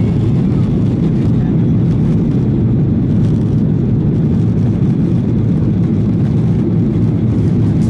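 Steady roar of a Boeing 737's engines and airflow, heard inside the passenger cabin in flight.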